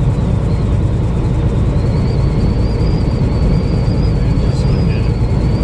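Steady low rumble inside an 18-wheeler's cab in high wind, with a faint wavering high whistle.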